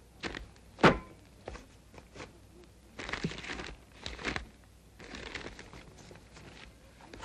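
Sound effects on an animated film's soundtrack: a sharp knock about a second in, then scattered softer clicks and a few short rustling noises.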